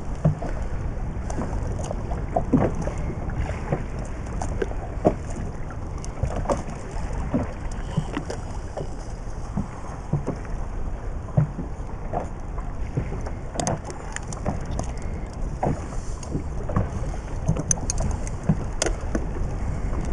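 Inflatable boat at sea: a steady low rumble of wind and water, with scattered light knocks and clicks from handling at the side of the boat.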